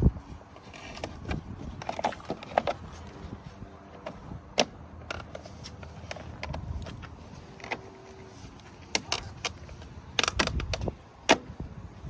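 Irregular clicks, taps and knocks of hard plastic being handled and pressed into place: the plastic trim cover being refitted on a Ford Fiesta ST's side mirror.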